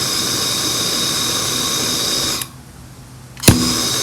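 Steady blowing hiss of a heat tool applied to free a stuck engine part. It cuts out about two and a half seconds in, and after a sharp click about a second later the hiss starts again.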